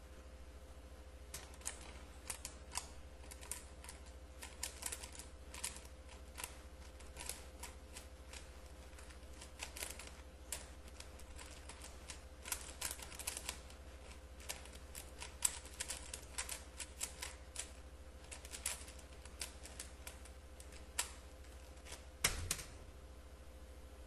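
3x3 Rubik's cube being speedsolved by hand: its plastic layers click and clack in fast, irregular runs of turns for about 21 seconds, ending with a louder knock near the end.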